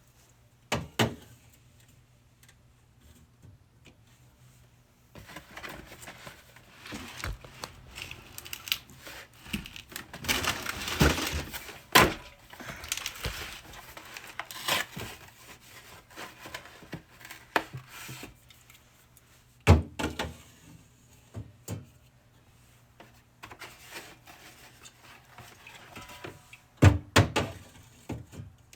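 Drink bottles and cans clunking against refrigerator shelves as they are loaded in, with a long stretch of plastic packaging rustling and crinkling in the middle. Several sharp knocks, the loudest near the end.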